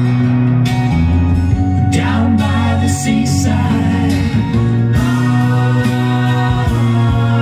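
Music from a vinyl LP playing on a turntable: a 1974 song in a long stretch without lyrics.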